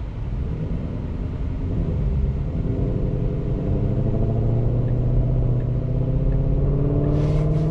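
Motor traffic heard from inside a car cabin while moving: steady low road rumble, joined a couple of seconds in by a vehicle's engine hum that slowly rises in pitch as it accelerates.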